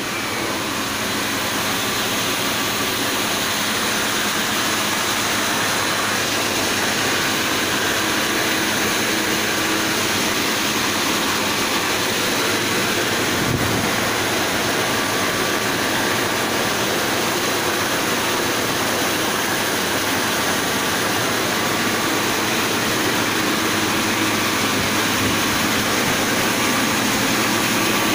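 Flour mill running: a loud, steady machine noise with a faint hum in it.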